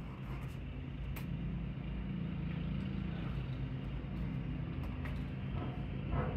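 A neighbour's lawn mower engine running steadily, a continuous low drone heard muffled through a closed window.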